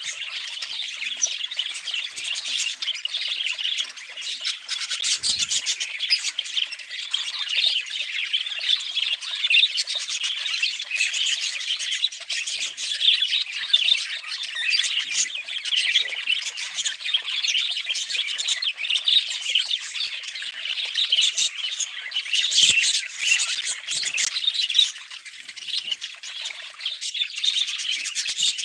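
Budgerigar chatter: a continuous stream of rapid chirps and squawks, with a brief lull near the end.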